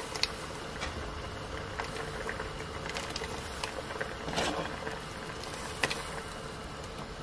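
Green masala boiling in a steel pot, bubbling steadily, with a few short sharp plops as raw mutton dumplings (chakkoli) are dropped into it by hand.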